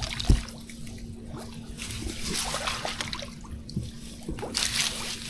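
Water sloshing and splashing as someone wades through a shallow ditch, in uneven swells, with a dull thump just after the start.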